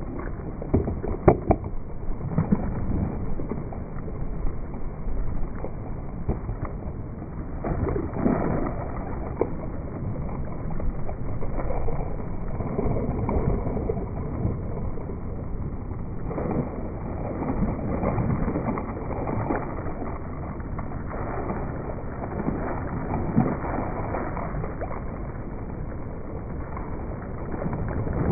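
Steady rain falling, with a few sharp clicks about one to two seconds in.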